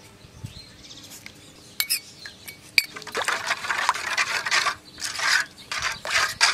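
A metal spoon clinks a few times against a steel bowl while green chilli and coriander paste is scraped out. About three seconds in it starts stirring the spiced tamarind water in a steel bowl, with a run of repeated swishing, splashing strokes.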